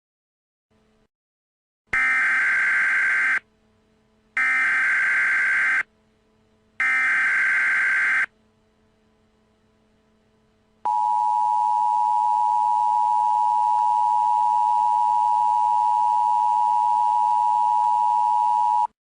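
Emergency Alert System SAME header: three bursts of digital data tones, each about a second and a half long with a second's gap between them. Then the EAS two-tone attention signal, a steady dual tone held for about eight seconds, announcing the voiced alert that follows.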